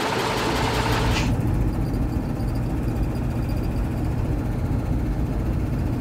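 Vehicle engine idling with a steady low rumble. About a second in, the higher background hiss drops away abruptly, leaving mostly the engine's low rumble.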